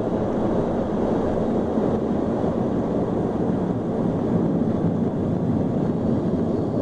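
Steady roar inside an airliner cabin during the landing roll on a wet runway: engine and rolling noise with no sudden changes.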